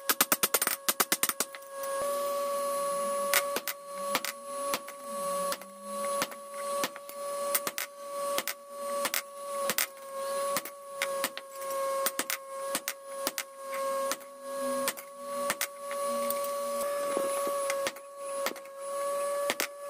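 Hammer forging a hot steel knife blade on an anvil: a quick flurry of strikes at the start, then steady blows about one every three-quarters of a second, the anvil ringing on with a steady tone between them.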